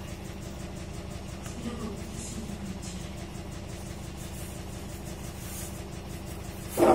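Steady low mechanical hum, with a short, louder sound just before the end.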